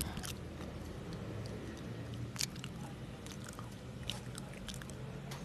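Close-miked chewing of soft mochi ice cream, with wet mouth sounds and scattered short sharp clicks over a low steady hum.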